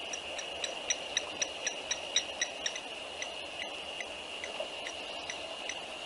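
Dusk wildlife chorus: a steady high-pitched drone with a quick series of short high pips, about four a second, loudest in the first three seconds and sparser after that.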